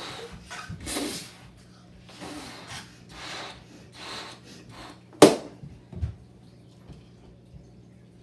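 Repeated hard breaths blowing up latex balloons, then a balloon popped with a toothpick about five seconds in, a single sharp bang that is the loudest sound.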